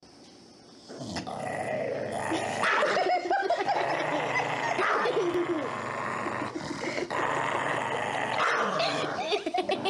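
A dog growling and grumbling over a chew bone, starting about a second in.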